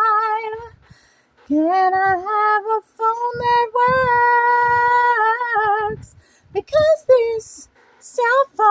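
A woman's voice singing a cappella: long held notes with vibrato, broken by short pauses, with a few sharp hissing sounds near the end.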